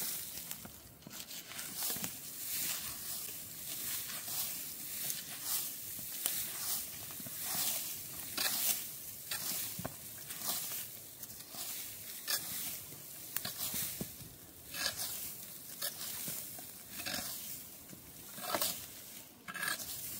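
A long-handled tool raking and scraping through dry leaves, sticks and dirt in uneven strokes, roughly one a second, each a short rustling scrape.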